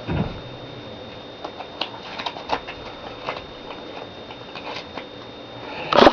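Foil Pokémon booster pack wrapper crinkling and trading cards being handled, with scattered light clicks and rustles and a louder rustle near the end.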